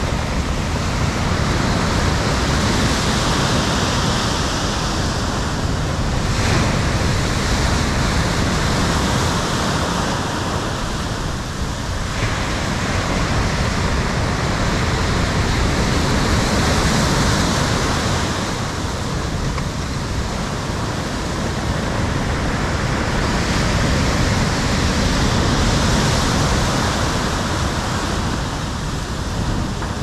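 Stormy sea surf: heavy waves breaking and foaming, a continuous rushing that swells and eases every several seconds as the sets roll in.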